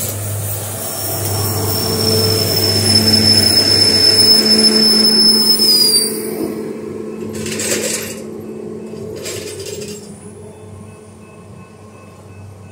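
A maintenance-of-way machine rolling past on the track, its engine running with a steady low hum and a high steady whine that bends down slightly and stops about six seconds in. The sound then fades, with two short rushes of noise a couple of seconds apart.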